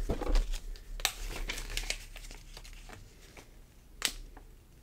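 Plastic bags of Lego pieces being handled, the film crinkling and the pieces inside clicking, with a sharper click about a second in and another near the end.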